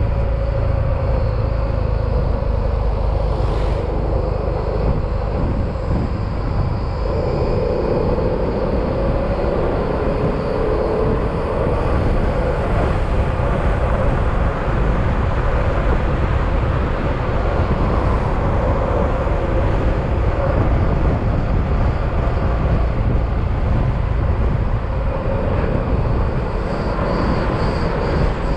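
Yamaha XMAX scooter's single-cylinder engine running steadily under way, its note wavering slightly, over a heavy rumble of wind and road noise.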